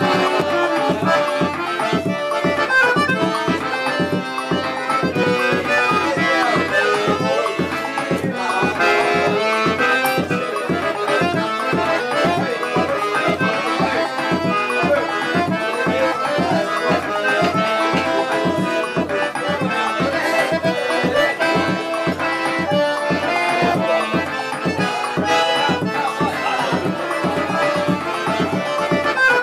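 Piano accordion playing a tune over a steady beat in the bass, about two to three beats a second.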